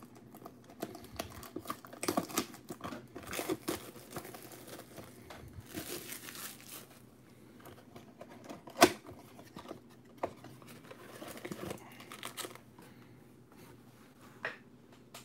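Hands tearing the plastic wrap off a 2020 Bowman Chrome trading-card box and opening the cardboard box to pull out its packs: on-and-off crinkling and tearing, with one sharp snap about nine seconds in.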